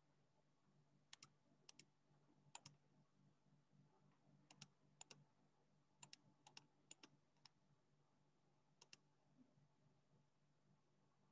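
Faint computer keyboard keystrokes, about a dozen irregular clicks, most heard as a quick pair, over a low steady hum.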